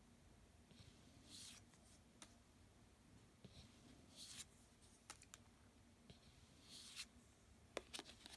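Faint swishes of cards being slid off the top of a Lenormand deck, three times, with a few light clicks and taps of fingers on the card stock.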